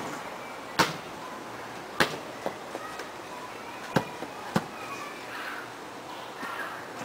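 A basketball bouncing on hard-packed ground as it is dribbled and retrieved: about six sharp thuds spaced irregularly, a second or so apart, with a quick pair near the middle.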